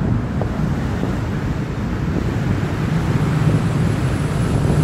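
Sightseeing cruise boat under way: a steady low rumble of its engine and the water, growing slightly louder toward the end.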